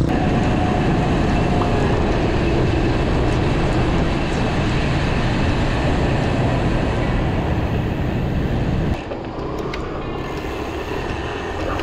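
Steady wind rush and road rumble on an action camera's microphone while riding, easing and thinning about nine seconds in.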